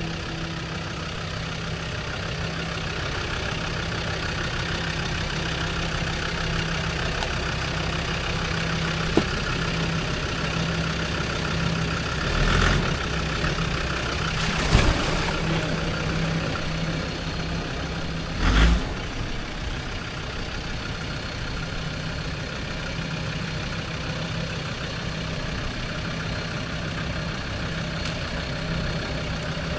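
Land Rover Discovery 2 engine running at low, steady revs while crawling an off-road track, with a few knocks and thumps from the body and suspension over bumps.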